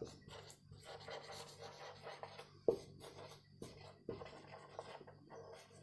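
Marker pen writing on a whiteboard: faint scratching strokes, with a couple of slightly sharper strokes a little under three seconds and about four seconds in.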